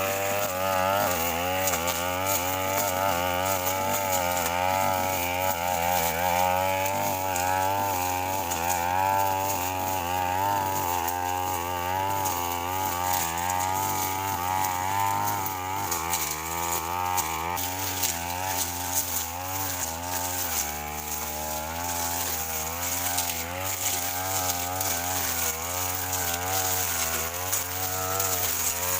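Brush cutter engine running at high revs, its pitch wavering up and down continuously as it cuts through grass and scrub, settling slightly lower in the latter part.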